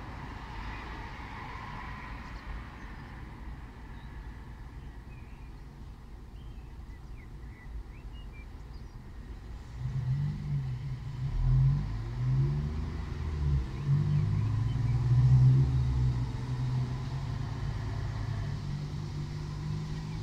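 Road traffic: a steady low rumble, then about halfway through a motor vehicle comes close, its engine note shifting up and down in pitch and loudest twice before it settles back into the background rumble.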